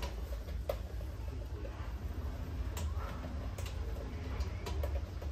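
Many mice scrabbling in and around a glass tank trap: scattered sharp ticks and scratches of claws on glass and wire mesh at irregular moments, over a steady low hum.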